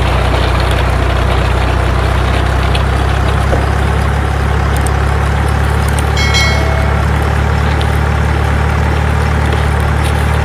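Truck engine sound effect: a steady, loud, low engine rumble running without change, with a brief bright chime about six seconds in.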